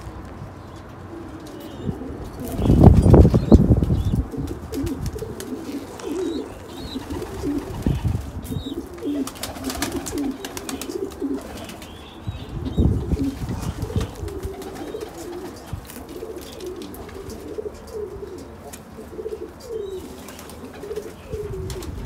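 Domestic pigeons cooing over and over, several birds at once, with bursts of wing flapping about three seconds in and again around thirteen seconds.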